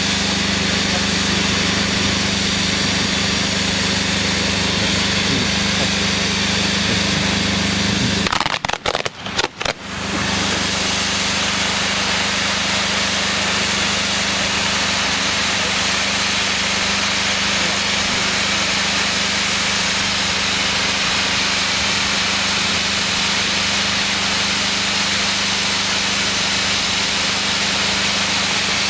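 Pyrotechnic fountains (gerbs) on ground-display frontpieces spraying sparks with a steady, loud hissing rush, over a steady low hum. About eight and a half seconds in the sound breaks off briefly, then resumes as before.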